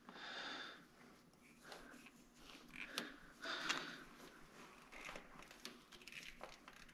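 Faint rustling and small handling noises of hands working hoses and wiring along a truck frame, with a sharp click about three seconds in.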